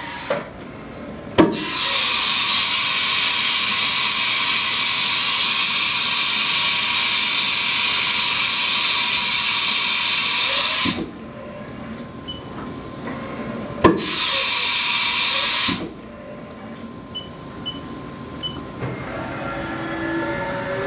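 Haas VF-3 machining center's coolant spraying inside the enclosure: a loud steady hiss that starts with a knock, runs about nine seconds and stops, then sprays again briefly for about two seconds. Short beeps sound in the quiet gaps.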